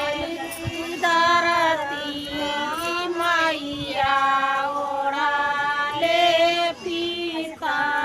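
Women singing a Hindu devotional song in long held notes that slide from pitch to pitch.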